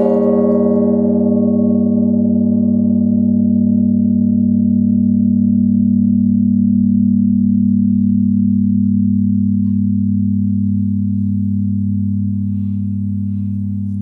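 A 4-tonne bronze Russian church bell struck once, then ringing on with a long, deep hum. Its higher overtones die away within about two seconds, while the low tones fade only slowly toward the end.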